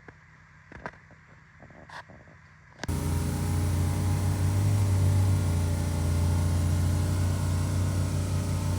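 A few faint taps, then from about three seconds in an engine running steadily at idle with a deep, even hum.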